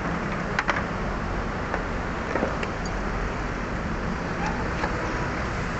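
A few faint light clicks from a screwdriver backing a screw out of a plastic steering column cover, over a steady low background rumble.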